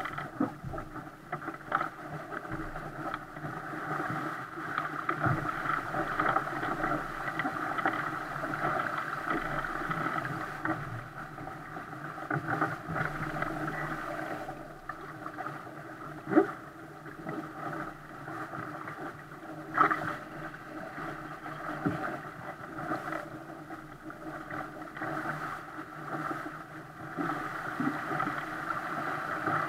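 Steady rush and splash of water along the hull of a 470 racing dinghy sailing fast, with wind on the microphone. A few sharp knocks or slaps cut through, two of them louder.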